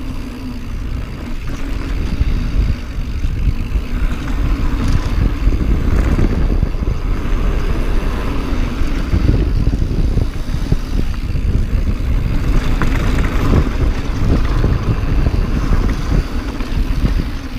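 Mountain bike riding fast down a rough, rocky trail. Wind buffets the microphone in a loud, steady rumble, while the bike rattles and knocks over bumps and rocks.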